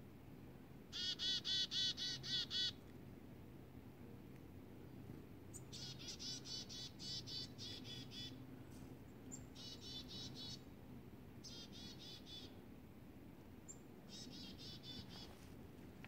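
Black-capped chickadee calling: five runs of quick repeated 'dee' notes, about five a second, with a few thin high chips in between.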